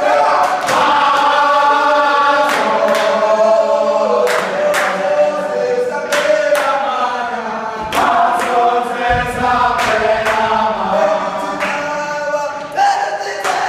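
A group of voices singing and chanting together in a team song, with sharp percussive hits now and then.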